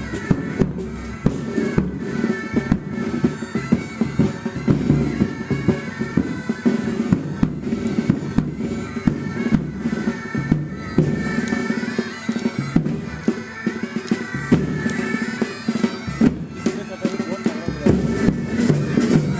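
A military pipe band playing a tune: bagpipes with their steady drone under the melody, and snare and bass drums beating throughout.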